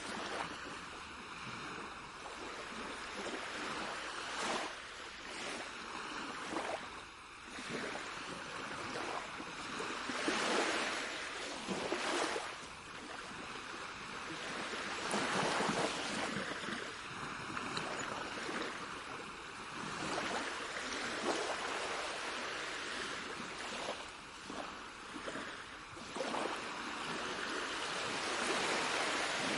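Sea waves washing onto a shore: a steady hiss of moving water that swells and eases every few seconds.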